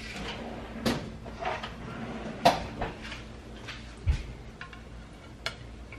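Spatula clinking and scraping against a pan as a baked turkey burger is lifted out, with a few sharp knocks, the loudest about two and a half seconds in, and a dull thump about four seconds in.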